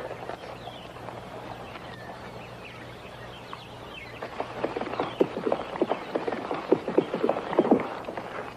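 Horse hooves clip-clopping: faint at first, then a quick, louder run of hoofbeats from about four seconds in as a horse comes up at pace. Light bird chirps in the background.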